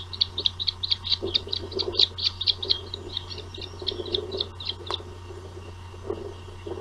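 Osprey calling: a rapid series of short, high chirps, about five a second, that stops about five seconds in.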